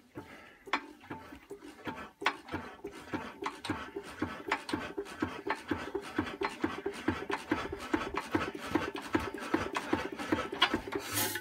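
Single-cylinder Imperial Super Diesel hit-and-miss engine being turned over by hand crank in an attempt to start it, a quick, even run of mechanical clicks as the flywheels spin, without the engine catching. A louder rush of noise comes near the end.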